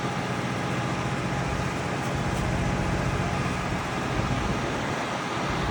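Heavy truck engines running steadily at a concrete pour, a low steady hum over a constant rush of site noise. The hum drops away a little under four seconds in.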